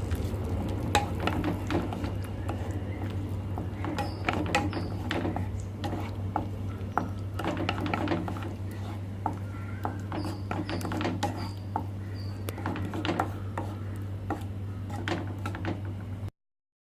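Irregular clinks and scrapes of a spoon against a pan as fresh cream is stirred into palak paneer gravy, over a steady low hum.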